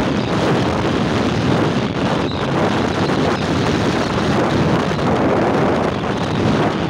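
Steady wind noise buffeting the microphone on a moving motorcycle, mixed with vehicle and road noise.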